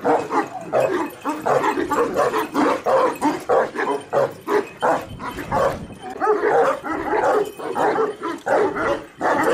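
A pack of Kangal shepherd dogs barking, many overlapping barks coming several a second.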